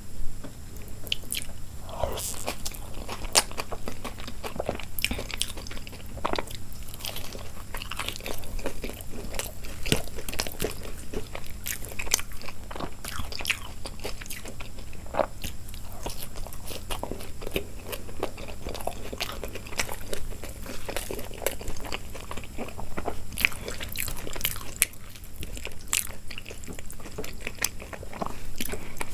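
Close-miked eating sounds: a person biting and chewing food with irregular crunches and mouth clicks throughout.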